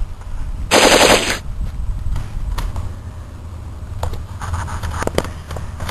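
A short burst of rapid machine-gun-like fire lasting under a second, about a second in. Scattered light clicks and knocks follow near the end.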